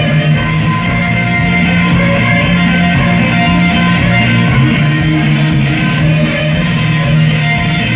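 Loud music with guitar, played at volume through a 'sonido' DJ sound system, with strong steady bass and no breaks.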